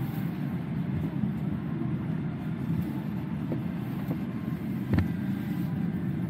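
Steady low rumble of a parked airliner's cabin air system during boarding, with a single knock about five seconds in.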